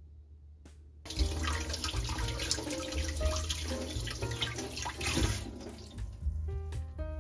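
Kitchen tap running, water splashing into the sink; it starts about a second in and stops a little after five seconds. Light background music comes in near the end.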